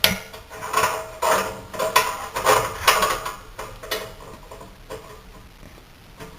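Repeated sharp metallic clicks, each with a short ring, about two a second, thinning out after about four seconds, as the Suburban furnace's pilot is being lit.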